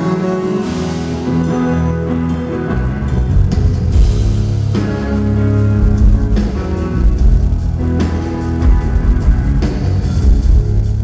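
Live rock band playing: electric guitar, with bass and drum kit coming in about three seconds in.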